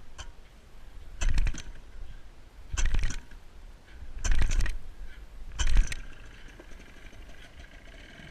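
Four loud clattering knocks, about a second and a half apart, each made of several quick rattling clicks.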